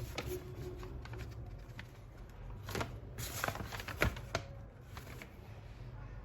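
Hands handling objects: light rustling with scattered clicks and a few sharper knocks about midway.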